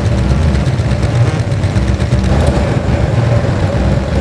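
Harley-Davidson police motorcycle V-twin engine running with a steady low rumble; a steadier engine note comes in about halfway through.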